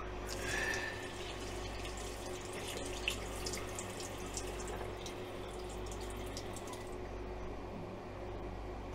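Water running from a bathroom tap into a sink with small splashes, starting just after the start and shutting off about seven seconds in. A steady low hum runs underneath.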